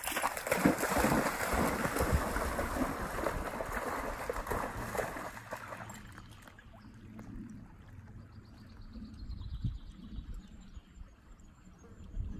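A dog splashing as it runs through a shallow stream, irregular splashes that stop about halfway through. After that only the low, steady sound of the flowing stream remains.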